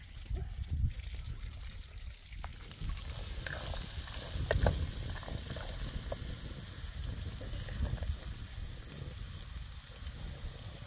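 A low rumble, then about two and a half seconds in a steady sizzle as chopped peppers and vegetables fry in a metal pan over a wood fire. A wooden spatula stirs them, with a few light scrapes and clicks.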